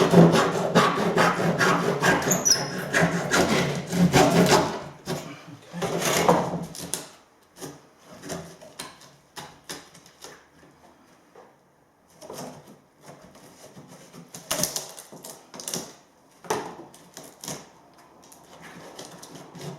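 Electric jigsaw cutting through rotten timber floorboards, its motor hum under dense rasping strokes; it stops about seven seconds in. Scattered knocks and scrapes of loose wood follow.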